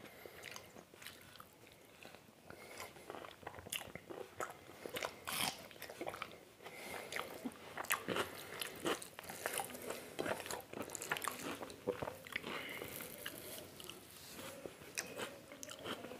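Close-miked eating by hand of mutton curry and rice: wet chewing and lip-smacking with many small irregular clicks, and crunching bites of raw onion.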